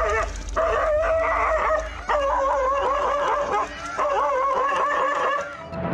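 A dog giving long runs of high, wavering yelping and whining cries, three runs with short breaks between, as it faces off against a leopard. A steady low hum runs underneath.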